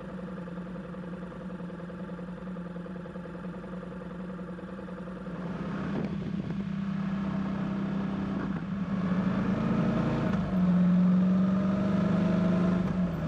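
Motorcycle engine running steadily, louder from about halfway through, and a little higher in pitch near the end as the bike picks up speed.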